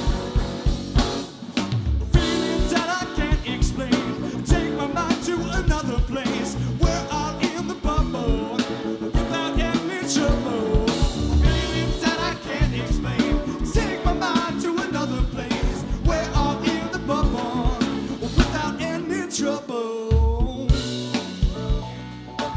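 Live band of electric guitar, bass guitar, keyboards and drum kit playing a song, with a steady drum beat under guitar and keyboard lines. The bass and kick drop out briefly near the end.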